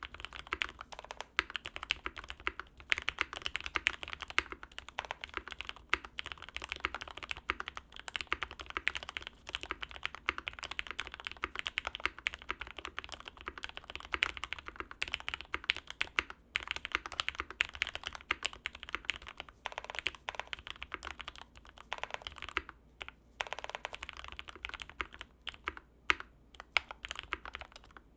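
Fast, continuous typing on a Matrix 2.0 mechanical keyboard with GMK keycaps and 67 g Gateron Ink switches: a dense clatter of keystrokes, broken by a few brief pauses in the second half.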